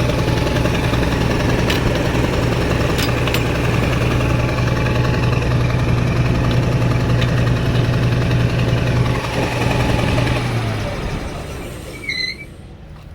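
Caterpillar 3306 inline-six natural-gas engine running steadily while misfiring: number 6 cylinder is getting no spark, which the mechanic suspects is a failed ignition coil. About nine seconds in it is shut down and winds down to a stop within a couple of seconds.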